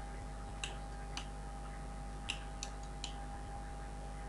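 Five faint, irregularly spaced clicks over a steady low electrical hum.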